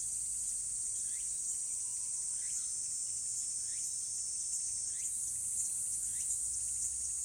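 A steady, high-pitched chorus of summer insects. Underneath it, a short sliding call repeats about once a second.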